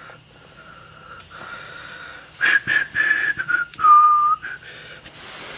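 A man whistling to himself, faint at first, then a few louder held notes at different pitches from about halfway in, with a few light clicks of hand tools among them.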